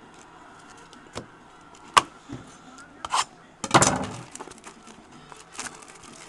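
Trading cards and a foil card pack being handled on a desk: a few sharp clicks and taps, the loudest about two seconds in, then a burst of foil wrapper crinkling as the pack is picked up just before the four-second mark.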